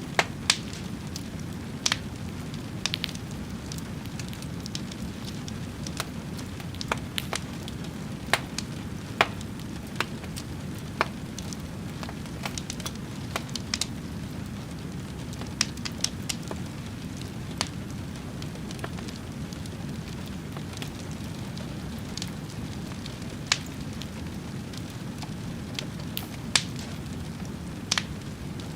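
Fire crackling: irregular sharp pops and snaps, one every second or two, over a steady low rushing.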